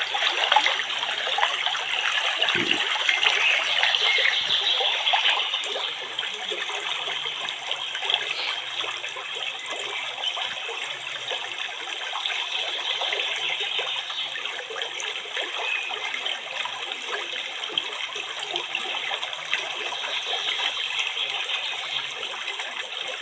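Steady rushing, trickling water noise, a little louder for the first five seconds or so.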